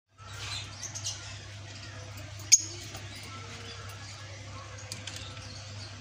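Fischer's lovebirds giving high, squeaky chirps, thickest in the first second and again near the end, with one sharp click about two and a half seconds in, over a steady low hum.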